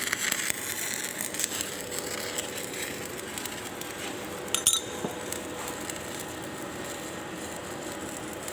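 Welding arc crackling, dying away about a second and a half in, leaving a steady hiss; a short sharp metallic clink about halfway through.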